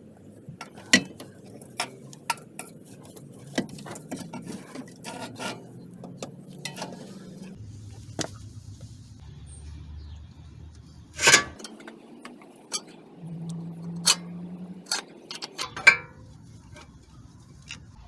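Scattered metal clinks and knocks as a new CV axle is worked into place, with one louder knock about eleven seconds in.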